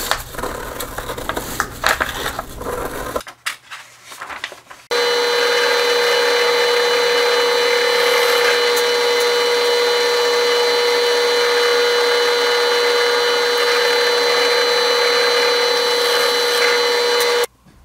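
Scissors cut through a paper stencil for the first few seconds. Then, about five seconds in, a drill press runs steadily with an even motor whine while boring holes through a plastic mud flap, and it cuts off abruptly near the end.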